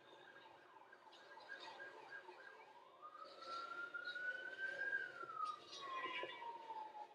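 Emergency vehicle siren: a quick warble for the first couple of seconds, then a slow wail that rises for about two seconds and falls away toward the end.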